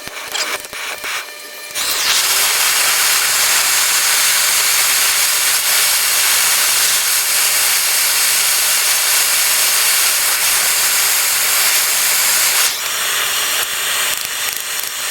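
A few short scraping strokes, then about two seconds in a loud steady hiss starts and runs on without a change in pitch, easing slightly near the end.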